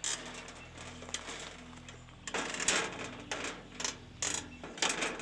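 Stiff wire being wrapped and pulled around a wooden post to tie on a metal sign frame: several short, rough scrapes and rattles, bunched in the second half.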